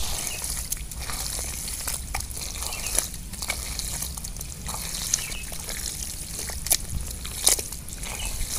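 Bare hands digging and squelching through wet, waterlogged mud, with sloshing water and a few sharp wet slaps.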